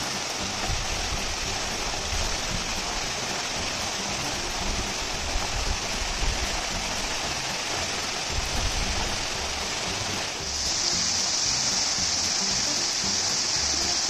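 Waterfall rushing steadily, a full hiss of falling water that grows louder and brighter about ten and a half seconds in.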